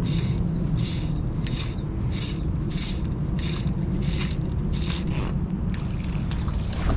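Fly line being stripped in by hand through the rod guides during a retrieve: short scraping swishes, about one every two-thirds of a second, easing off near the end. A steady low rumble runs underneath.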